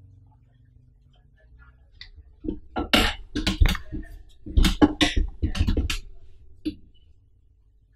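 Handling noise on the camera as it is picked up and moved: a quick cluster of loud knocks and rubbing for about three and a half seconds, with one last light knock a moment later.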